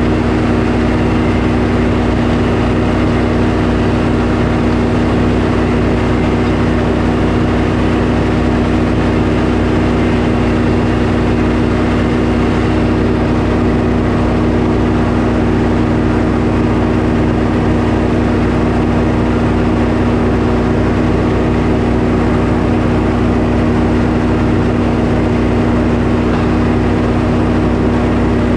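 Sawmill engine running steadily at a constant pitch, with no change in speed or load.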